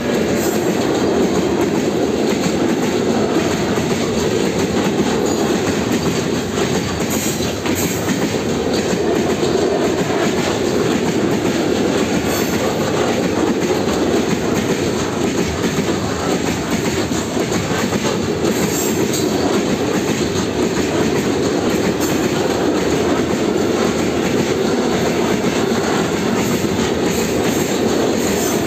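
Freight train of open-top steel wagons rolling steadily past at close range: a continuous loud rumble of wheels on rail, with a few sharp wheel clicks over rail joints.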